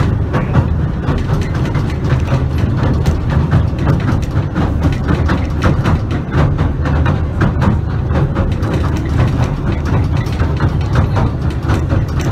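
Southend Pier train running along the pier, heard from inside the carriage: a steady low rumble with many irregular rattles and clicks from the wheels and car body.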